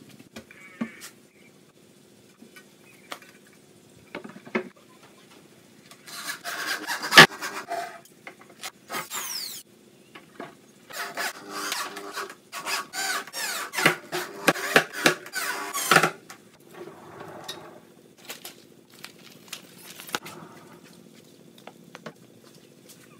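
Handheld electric drill driving screws through a perforated metal grille into a subwoofer cabinet, in two runs of a few seconds each, the second in many short pulses. Short knocks and scrapes of handling come before and after.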